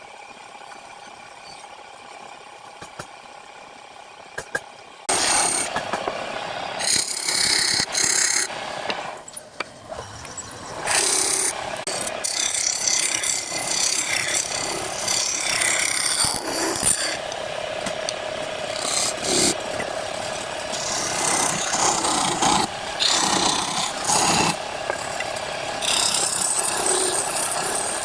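Wood lathe spinning a wooden workpiece while a tool is pressed against it, giving loud scraping in uneven bursts over the lathe's steady tone. The first five seconds or so hold only a quieter steady hum and a few clicks before the scraping starts.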